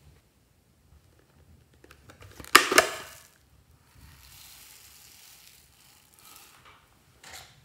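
Plastic container of small foam beads opened and tipped: a loud rattling clatter about two and a half seconds in, then the beads pour out onto the slime with a steady hiss, and a short last rattle near the end.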